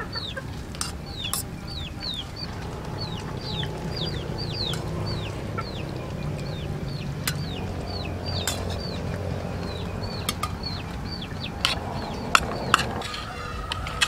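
Chicks peeping over and over, short falling chirps two or three a second, with a few sharp clicks near the end.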